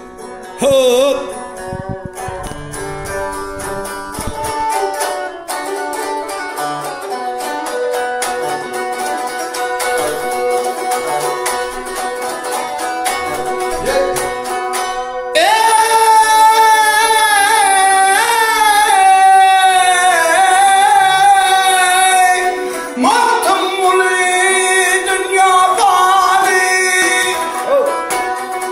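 Turkmen dutar strummed rapidly in a long instrumental passage, then a man's strong singing voice comes in over it about halfway through, holding long wavering notes in the traditional bagshy style.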